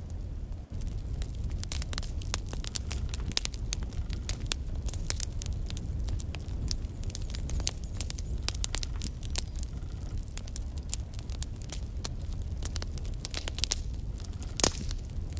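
Wood fire burning in a fireplace: logs crackling with many quick pops over a low steady rumble of the flames, and one louder pop near the end.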